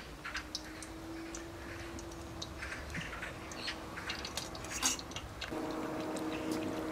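Battered eggplant slices frying in hot oil: a faint sizzle with scattered crackles, drips and light clicks of a utensil, over a low steady hum. About five and a half seconds in the sizzle grows louder as more slices go into the oil.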